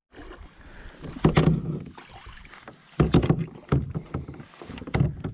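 Kayak paddle strokes dipping and splashing in river water, several strokes over a few seconds.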